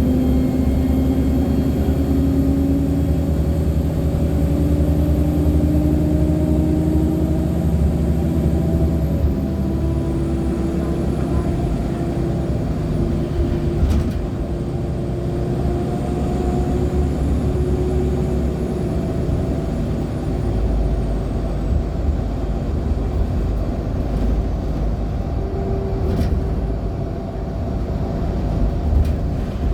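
Ride inside a 2014 NOVA LFSA hybrid articulated bus with a Cummins ISL9 diesel and Allison hybrid drive: the engine runs under a steady low rumble. A thin high whine, the bus's turbo noise, drops in pitch about ten seconds in, rises again and falls away. A couple of brief knocks come from the bus body.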